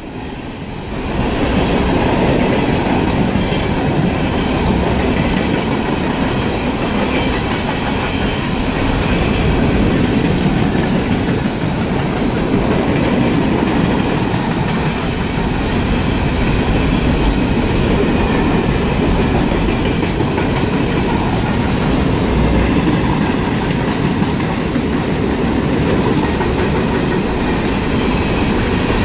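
Empty steel coal hopper cars of a freight train rolling past at close range: a steady, loud noise of steel wheels running on the rails.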